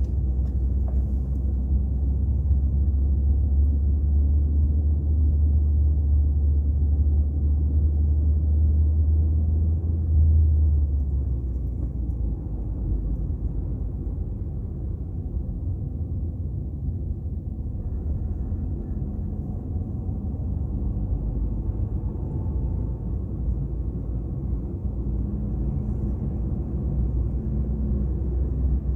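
Low rumble of engine and road noise inside a moving car's cabin. It is heavier for about the first ten seconds, then eases a little and stays steady.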